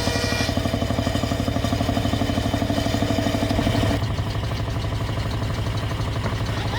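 An engine running with a fast, even beat; the sound changes abruptly about four seconds in.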